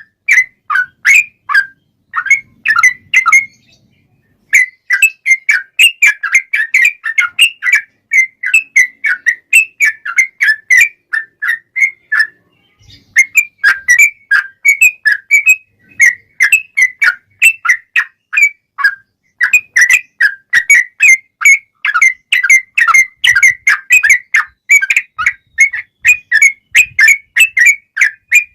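Yellow-vented bulbul (trucukan) singing its loud 'fighting' song: a long, rapid run of short, bubbly whistled notes, about three a second, breaking off briefly twice.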